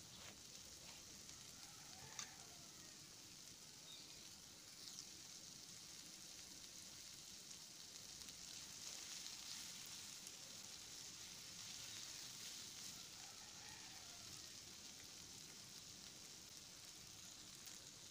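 Chopped onion, capsicum, cabbage and tomato frying in oil in a nonstick pan, a faint steady sizzle. A few light clicks of a spatula stirring the vegetables come through it.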